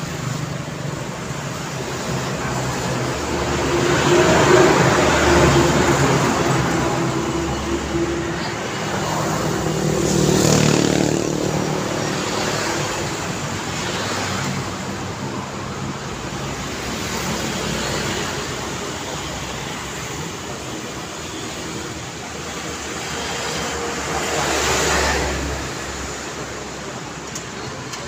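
Road traffic: cars passing one after another on a wide city street over a steady hum of traffic. The loudest pass comes about four to five seconds in, another about ten seconds in, and a third near the end.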